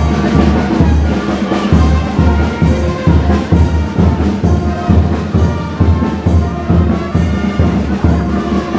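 Brass band playing, with a steady drum beat under the brass.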